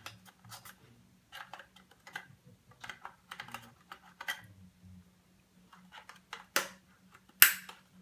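Small plastic clicks and rustles of SATA cable connectors being fiddled onto a 2.5-inch Samsung drive, scattered and irregular, with two sharper clicks near the end.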